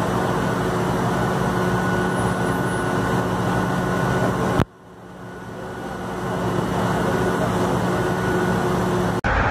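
An engine running steadily, with a low hum under a wash of noise. The sound drops out suddenly a little under halfway through and swells back over a couple of seconds, then cuts out for an instant near the end.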